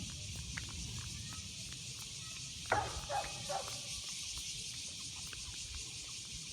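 Outdoor background of steady high hiss and low rumble, with a short run of three or four brief distant calls about three seconds in.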